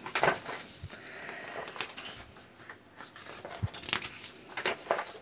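Printed paper workbook pages being turned over by hand: several quick papery swishes, with light taps of paper on the table.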